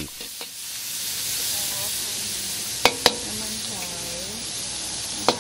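Squid and sauce sizzling in a very hot wok, with sharp clanks of the metal wok turner against the pan: two close together about three seconds in and one more near the end.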